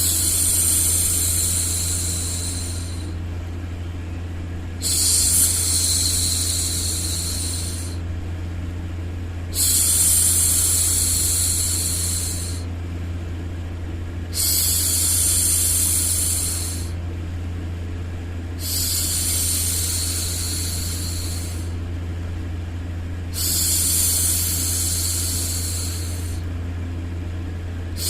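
A woman's voice going 'shhh' to hush a baby, six long shushes about every four to five seconds, over a steady low hum of white noise.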